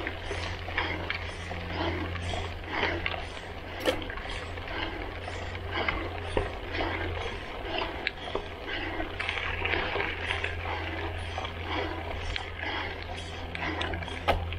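Gravel bike riding over a dirt and gravel road, heard from a handlebar-mounted action camera: tyres crunching and hissing over loose gravel, with a steady low wind rumble on the microphone.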